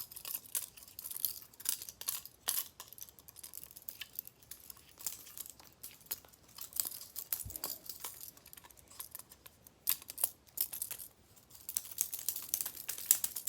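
Irregular small clicks and light metal clatter from a butterfly knife trainer being handled, its parts knocking together.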